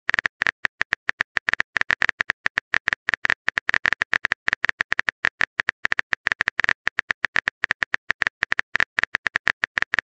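Simulated phone-keyboard typing clicks: a rapid, irregular run of short taps, several a second, as a text message is typed out.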